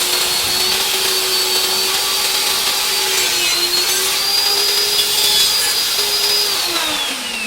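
Electric motor running steadily with a whine over an airy rush, then switched off about six and a half seconds in, its pitch falling as it winds down.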